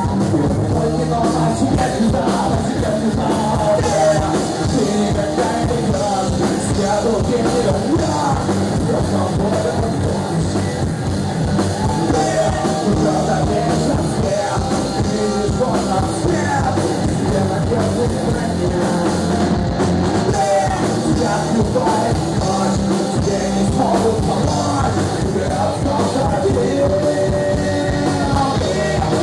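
Live rock band playing: a lead singer shouting and singing over electric guitars, bass guitar and drums, loud and unbroken.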